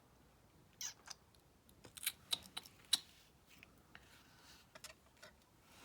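Paper and craft materials being handled on a work surface: a scatter of light clicks, taps and rustles, busiest about two to three seconds in.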